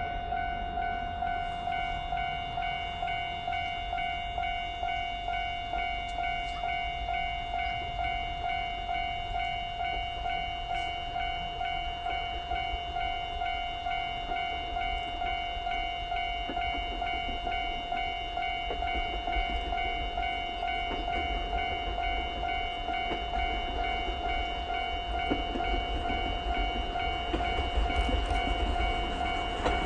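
Level-crossing warning alarm ringing steadily in fast, even repeated strokes, over the low rumble of the approaching SL Mooka train hauled by steam locomotive C11 325. The rumble grows louder near the end as the train nears the crossing.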